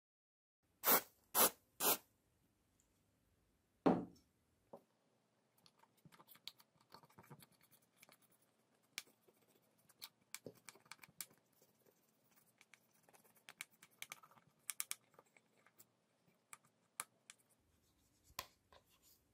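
Cotton swab scrubbing the soldered copper side of a homemade circuit board: a run of small scratching and rubbing ticks. Near the start come three sharp clicks in quick succession and then a knock.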